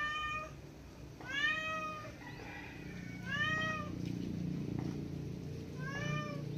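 A cat meowing repeatedly: four separate calls, each rising then falling in pitch, over a low steady hum.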